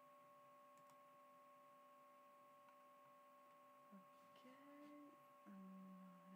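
Near silence: room tone with a faint steady electrical whine, and a few faint low tones in the second half.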